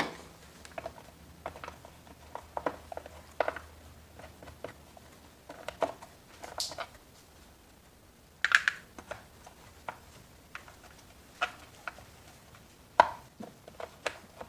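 Scattered plastic clicks and knocks as the red plastic top cover of a Shindaiwa 490 chainsaw is handled, set onto the saw and fastened down, with a short scraping rustle about eight and a half seconds in and a sharp knock near the end.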